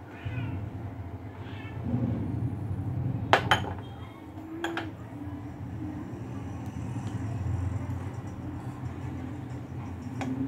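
Spoon clinking against glass dessert bowls in a few sharp taps as thick rice pudding (phirni) is spooned into them. A cat meows twice near the start.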